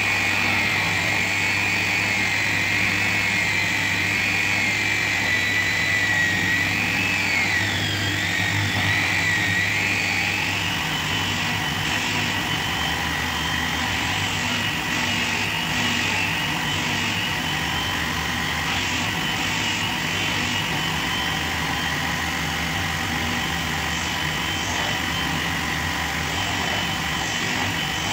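Angle grinder with a sanding disc, mounted as a disc sander, running steadily with a high whine. The whine dips and wavers in pitch about eight seconds in, then settles.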